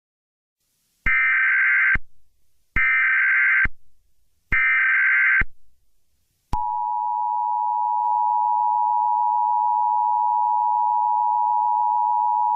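Emergency Alert System activation: three bursts of SAME digital header tones, each about a second long with short gaps between them, then the EAS two-tone attention signal comes on about six and a half seconds in and holds steady. It opens a severe thunderstorm warning.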